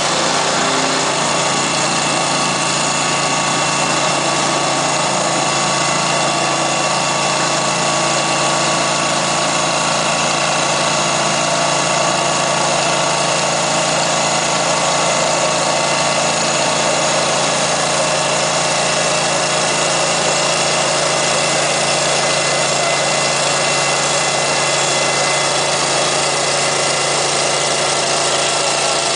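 Ditch-digging machine's engine running steadily, its pitch unchanging.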